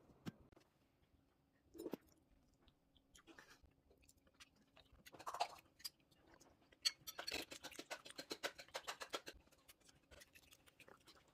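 Faint crisp crunching and clicking from a pan-fried green onion pancake being cut or bitten, with a quick run of crackles about seven seconds in.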